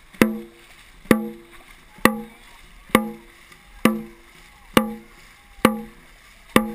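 Dragon boat drum beaten in a steady rhythm, eight strikes a little under a second apart, each hit ringing briefly with a low tone. The beat keeps the paddlers' stroke pace.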